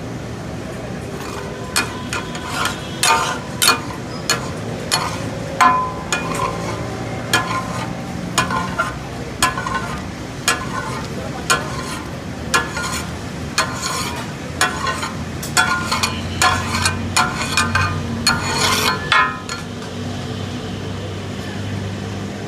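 Steel spatulas clanging and chopping on a hot iron tawa, the rhythmic takatak of brain masala being cooked, about one ringing strike a second over a steady sizzle. The strikes stop near the end.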